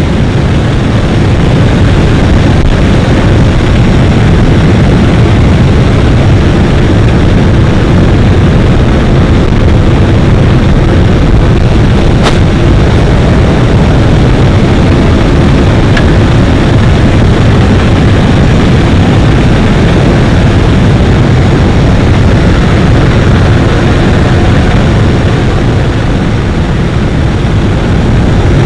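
Steady loud noise inside an aircraft cabin in flight: the engines run and air rushes past the open jump door, without letup.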